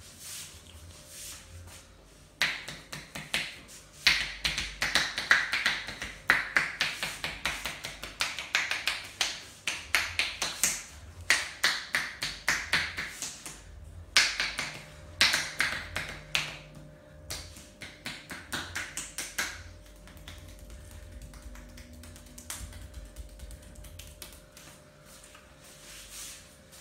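Rapid percussive massage strokes: hands tapping and slapping on the body in a quick run of sharp claps, about three to four a second. They start about two seconds in, are loudest through the middle, and fall to faint taps for the last few seconds.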